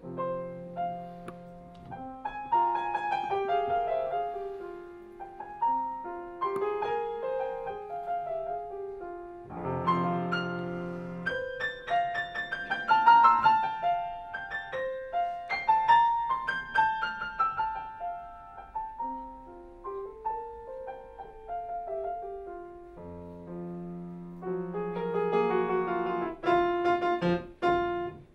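Solo piano played live: flowing melodic phrases over held chords, separated by brief pauses and loudest about halfway through.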